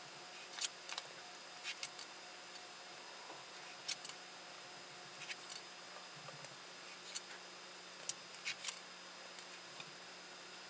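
Steel ruler and pencil handled on a sheet of paper: scattered light clicks and taps, about a dozen, as the ruler is set down and shifted and the pencil ticks against it. A faint steady hum underneath.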